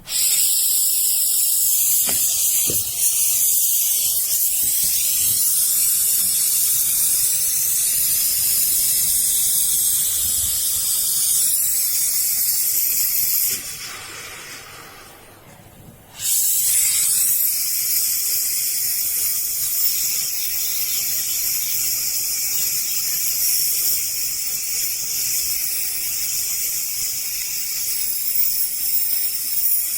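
Loud, steady hiss of gas or air escaping under pressure, breaking off for a couple of seconds about halfway through and then starting again.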